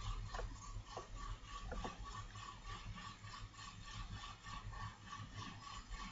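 Faint steady background hum and hiss of the recording, with a thin steady tone, and a few soft clicks in the first two seconds.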